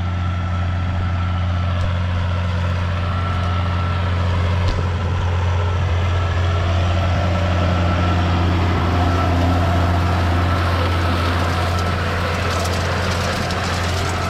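John Deere 6830 tractor engine running steadily under working load, with a thin steady whine above the engine note.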